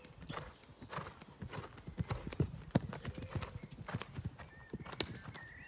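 A horse cantering on a sand arena surface, its hoofbeats coming as a run of repeated dull thuds.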